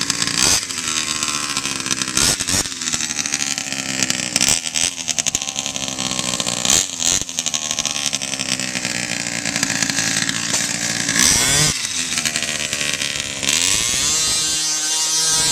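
Small two-stroke gas engine of a quarter-scale RC car, a 23 cc motor, revved again and again: each throttle blip jumps up in pitch and winds back down, and near the end it is held at a steady high rev. It has a buzzy sound like a dirt bike.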